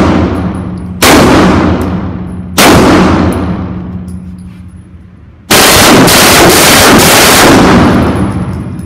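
Gunfire from a ported Glock 18C 9 mm pistol with long indoor-range echo. Two single shots about a second and a half apart, then a rapid string of shots lasting about two seconds.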